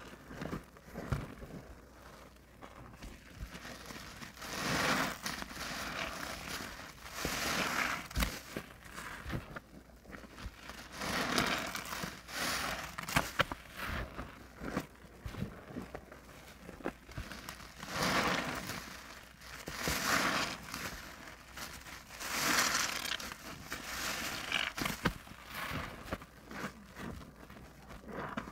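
Soap-soaked sponge squeezed over and over under a gloved hand in thick suds: wet squelching with crackling, popping foam, swelling with each squeeze every two to three seconds.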